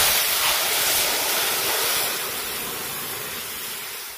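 Boiled masoor dal ladled into hot mustard-oil tempering in a steel wok: a loud sizzle and hiss of steam that starts all at once and slowly dies down.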